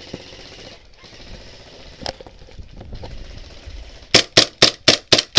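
Airsoft rifle firing a quick string of evenly spaced shots, about four a second, starting about four seconds in.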